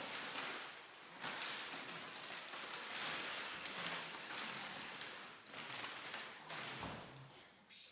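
Crinkling and crackling of empty plastic bottles and crumpled plastic sheeting as a puppy scrambles and tugs among them on a concrete floor, a dense, continuous rustle.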